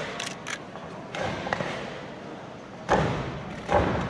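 Sharp snaps and thuds of a karate team kata: uniforms cracking and bare feet striking the mat in sync with the techniques. A quick cluster right at the start and one about a second in, then two heavier thuds about three seconds in and near the end, each echoing in the hall.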